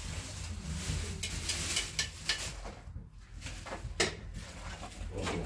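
Metal ladle clinking and scraping against a metal pot and dishes as broth is served, with several sharp clinks, the sharpest about four seconds in, over a steady low hum.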